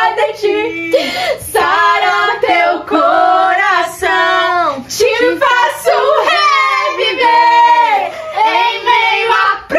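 A high female voice singing a Brazilian gospel song unaccompanied, in long held notes that slide up and down in pitch.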